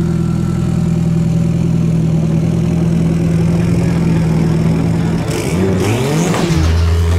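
Turbocharged Honda F20C four-cylinder running through its new exhaust as the car pulls away slowly, with a quick rev about five seconds in. Near the end it switches to a steady engine note heard from inside the cabin.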